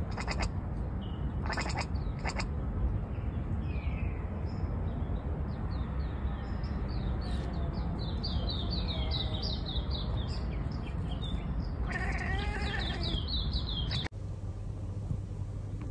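Cat chattering in quick clicky bursts at the start, then a bird's repeated short, falling chirps that crowd together near the end, over a steady low outdoor rumble.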